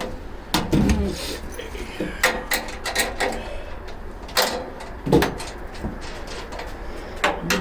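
Scattered knocks and clanks, about eight of them at uneven intervals, from parts of a tool cart being handled and fitted during assembly.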